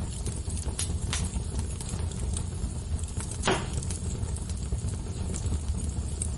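Fire crackling: a steady low rumble of flames with scattered sharp pops, the loudest about three and a half seconds in.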